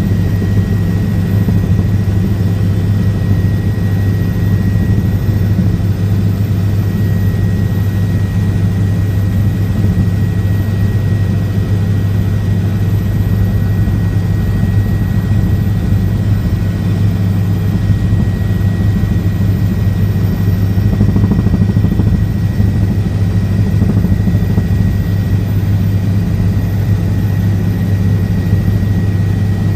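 Helicopter in flight: a loud, steady low drone of rotor and engine with a thin, steady high whine over it.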